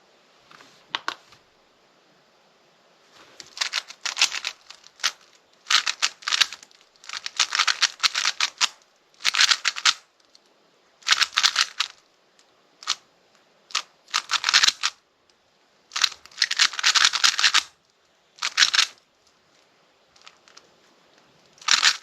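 Speedcube (Rubik's cube) being turned fast by hand during a timed solve: runs of quick plastic clicking turns broken by short pauses. The clicking starts about three seconds in.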